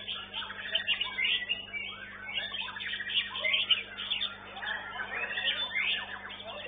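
White-rumped shama (murai batu) singing a rapid, varied song of chirps, whistles and sweeping trills, with a faint steady low hum beneath.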